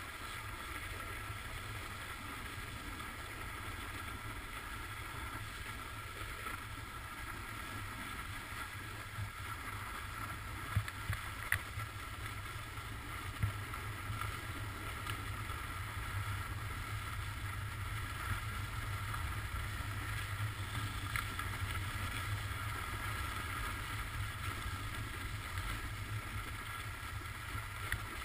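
Skis sliding on groomed snow with wind rumbling over the mic, picked up by a GoPro mounted on a ski pole: a steady hiss over a low rumble, with a few sharp clicks about halfway through.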